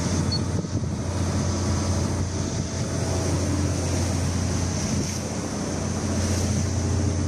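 Fishing boat's inboard engine running at a steady low drone, with wind buffeting the microphone and the sea rushing along the hull.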